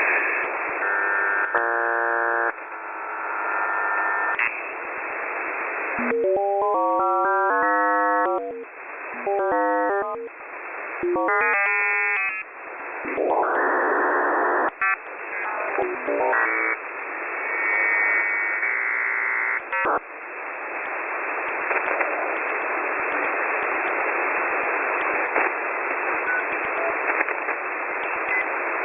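Shortwave radio receiver static, broken in the first twenty seconds by several bursts of digital data signals: stacks of steady tones and runs of tones stepping quickly up and down in pitch. After that there is only steady hiss with faint clicks.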